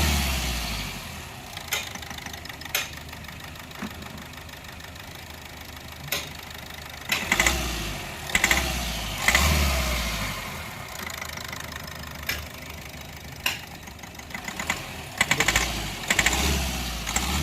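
Engine running with a sharp knock coming from the fourth cylinder, revved up briefly a few times. The knock is diagnosed as an internal engine fault: a seized piston causing heavy blow-by that pushes oil out of the dipstick tube.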